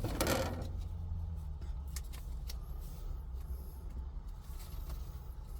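Steady low hum inside a pickup truck's cab, with a brief rustle right at the start and a few faint light ticks.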